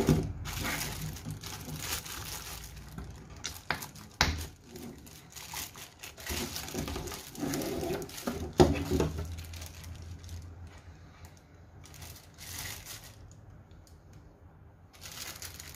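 Clear plastic bags around LED spotlights crinkling as the lights are handled and laid on a table, with a few sharp knocks about four and eight and a half seconds in; the rustling dies down in the last few seconds.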